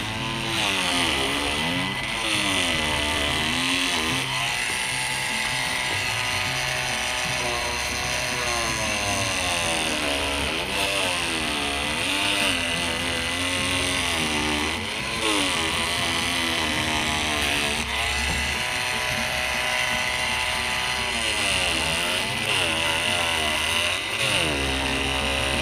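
INGCO CMLI2001 cordless oscillating multi-tool cutting into the husk of a Monthong durian. Its buzz keeps sagging and rising in pitch as the blade loads up in the tough rind.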